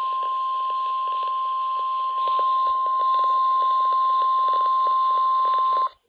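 Steady single-pitch warning alarm tone, about 1050 Hz, of a NOAA Weather Radio broadcast played through a RadioShack weather alert radio's speaker over static hiss. It gets a little louder about two seconds in and cuts off suddenly near the end.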